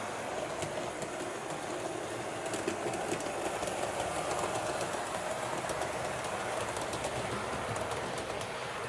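Train running along the track: a steady rolling noise with light, irregular clicks as the wheels cross rail joints, the clicks coming more often from about a third of the way in.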